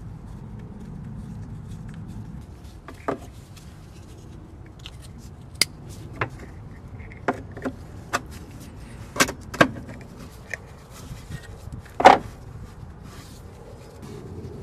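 Scattered sharp plastic clicks and knocks as the ignition coils and their wiring connectors are pushed back into place on a Smart ForTwo's three-cylinder engine. There are about nine of them at uneven intervals, and the loudest comes about twelve seconds in.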